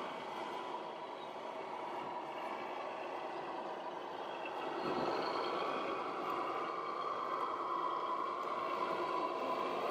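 Radio-controlled model trucks and construction machines running: a steady mechanical whir that grows louder about halfway through, with a whining tone that drifts slightly in pitch.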